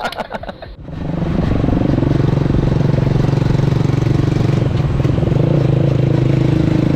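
GPX Gentleman 200 custom chopper's single-cylinder engine running at a steady pitch as the bike rides along. It starts abruptly about a second in.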